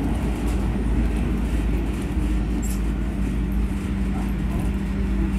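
SEPTA Broad Street Line subway car, a Kawasaki B-IV, heard from inside as it runs into a station platform and slows. A steady low rumble, with a humming tone that settles into one even pitch about halfway through.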